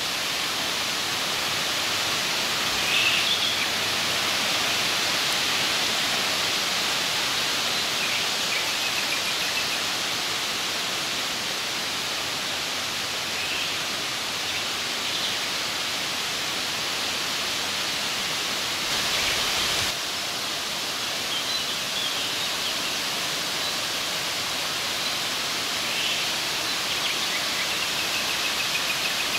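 Steady, even rushing noise with faint, short bird chirps every few seconds.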